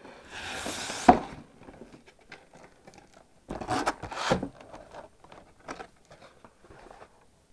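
Cardboard box and clear plastic display tray being handled: a sliding scrape ending in a sharp knock about a second in, two louder rustling scrapes a little later, then light ticks and taps.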